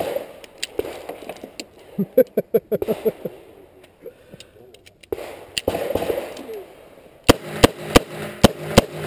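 Smith & Wesson 686 revolver fired rapidly, a string of sharp shots about three a second starting about seven seconds in. Earlier comes a quick run of light metallic clicks as the cylinder is reloaded.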